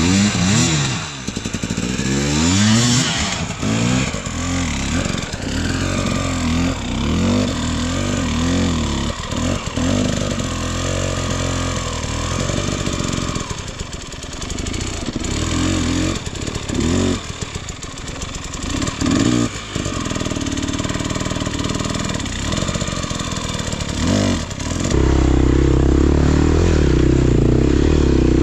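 Enduro dirt bike engine revving up and down repeatedly as the bike is ridden. About three seconds before the end the sound switches abruptly to a steady, louder engine note.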